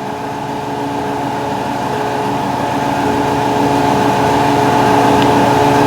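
A machine motor running with a steady, constant-pitch hum that grows gradually louder.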